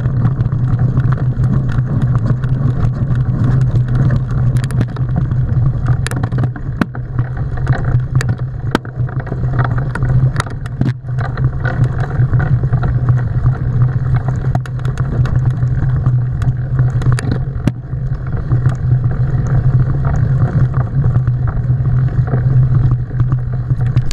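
Mountain bike riding a rough dirt trail, heard through a bike-mounted action camera: a loud, steady low rumble of wind and vibration on the microphone, with frequent clicks and knocks as the bike jolts over bumps.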